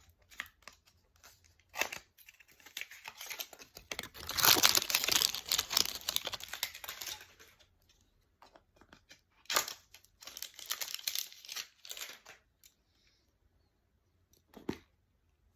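A packaging wrapper crinkling and being torn open by hand, in a long stretch of rustling and tearing a few seconds in, then a second shorter bout of crinkling, and a single tap near the end.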